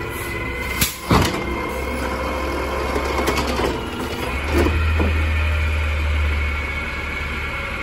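Automated side-loader garbage truck's arm grabbing a wheeled trash cart, lifting it and tipping it out into the hopper. The natural-gas engine runs steadily with a high whine over it and rises from about halfway through as the arm lifts, with sharp clanks about a second in and again as the cart is tipped and knocks against the hopper.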